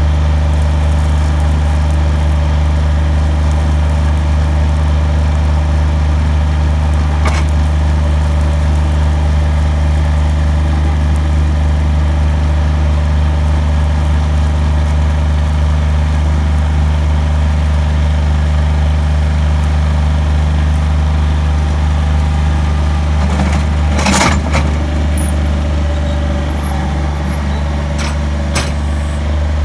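Heavy equipment's engine running steadily at one speed, with a few sharp knocks over it, the loudest about 24 seconds in.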